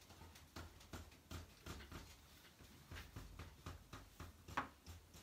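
Short, quick drawing strokes on paper pinned to an easel board: faint irregular taps and scratches, about three or four a second, one a little louder near the end.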